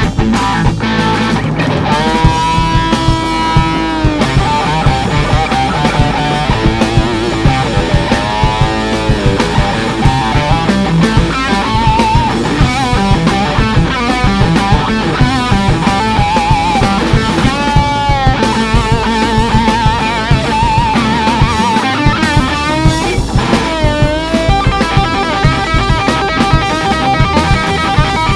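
Rock band playing live: an electric guitar solo of held, bent notes with vibrato over bass guitar and drum kit.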